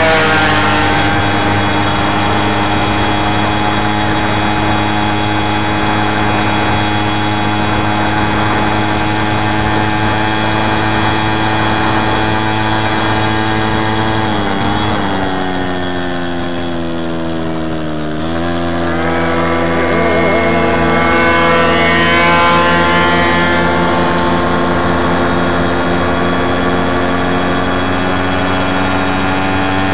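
VéloSolex moped's two-stroke engine running steadily. About halfway through its pitch drops as it slows, then climbs back up over a few seconds as it speeds up again.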